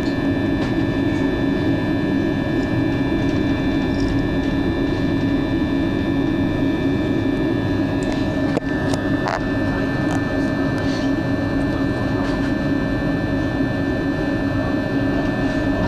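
A machine running with a steady, unbroken drone and several constant high-pitched whines above it, with one short click about halfway through.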